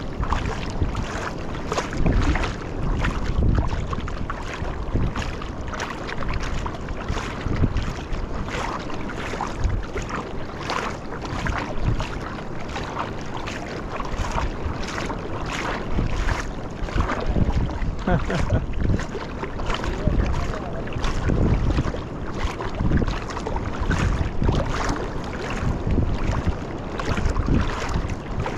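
Footsteps wading through shallow water, a regular splash about every half second, under wind buffeting the microphone.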